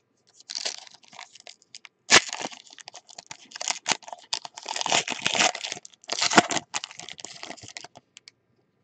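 Foil wrapper of a 2018 Panini Select football card pack crinkling and tearing as it is ripped open by hand, in irregular bursts of crackling with a sharp crack about two seconds in.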